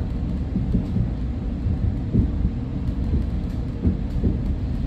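Market-Frankford Line train car heard from inside while running along the track: a steady low rumble with a few knocks through it.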